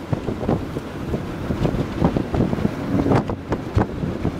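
Gusty wind buffeting the microphone, a rough low rumble with sudden irregular blasts.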